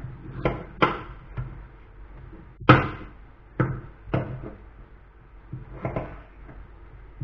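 Kitchen knife cutting potatoes on a wooden cutting board: about ten uneven knocks of the blade on the board, the loudest about two and a half seconds in.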